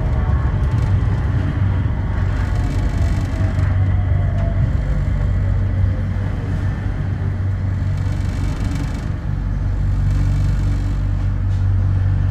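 Sengkang LRT train, a rubber-tyred automated people mover, running, heard from inside the car: a steady low rumble and hum, with a motor whine that falls in pitch over the first six seconds or so as the train slows.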